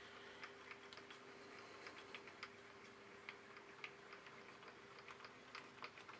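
Faint, irregular light clicks from a hand-wound mini mill table traversing under its handwheel, with a faint steady hum underneath.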